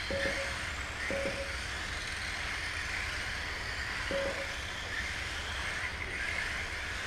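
Small electric RC race cars running, a steady whirring hiss of motors and tyres. Three short identical beeps cut through, one near the start, one about a second in and one about four seconds in, typical of a lap-timing system as cars cross the line.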